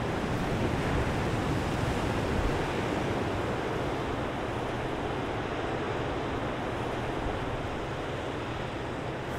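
Ocean surf washing steadily onto the beach, mixed with wind.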